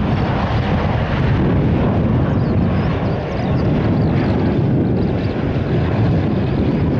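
Boeing 787-9 airliner arriving to land, its two GEnx jet engines giving a loud, steady low rumble that dips briefly about three seconds in.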